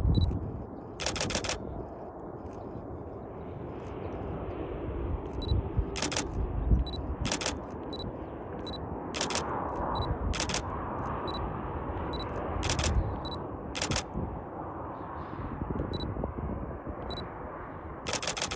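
Camera shutters firing, singly and in quick bursts of several frames, over the continuous rumble of a twin-engine jet landing at a distance.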